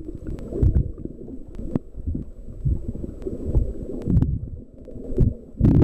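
Muffled underwater sound picked up by a camera held below the surface: irregular low rumbles and thumps of moving water against the housing, with a few sharp clicks.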